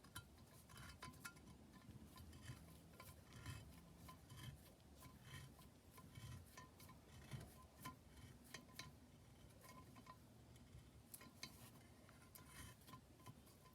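Near silence with faint, irregular small metallic clicks and ticks from hand work with tools on a small-block Chevy cylinder head.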